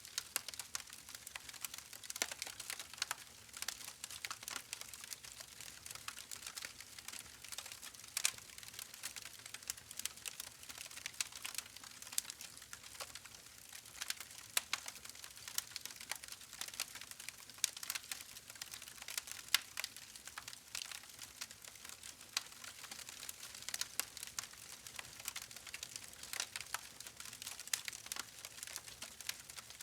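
Campfire burning, with dense irregular crackling and snapping of wood over a soft hiss.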